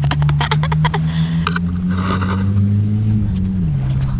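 A motor engine running steadily, its pitch dipping a little over three seconds in and rising again just after. A quick run of clicks in the first second.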